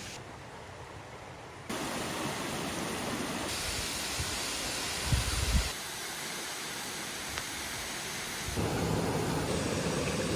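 Steady hiss of falling water across several short clips, its level jumping abruptly at each cut, with a brief low rumble about five seconds in.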